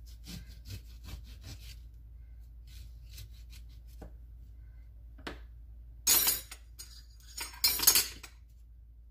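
Kitchen utensils and dishes being handled: light taps and clinks, then two short, loud scraping rubs, one about six seconds in and one about a second and a half later.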